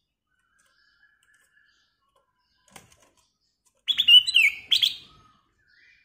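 Ruby-throated bulbul (kutilang emas) calling: one short, loud phrase of clear, slurred whistled notes about four seconds in, after a faint thin note and a single click.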